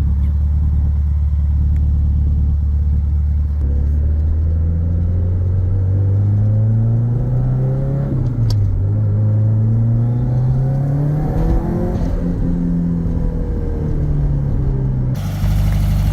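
Car engine running steadily, then climbing slowly in pitch for several seconds, dipping sharply for a moment, climbing again and falling back.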